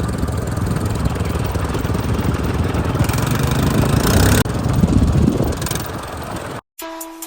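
Off-road motorcycle engine running with a rough, rapid pulsing, cut off abruptly about six and a half seconds in. A brief silence follows, then short plucked-sounding music notes begin near the end.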